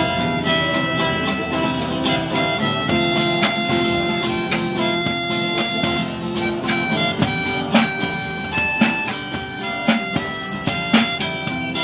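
Music: a guitar playing held and changing notes, with drum hits coming in more strongly toward the end.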